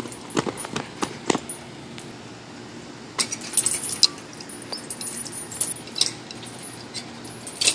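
Metal swing chains clinking and rattling in scattered, irregular clicks as a playground swing is handled and swung.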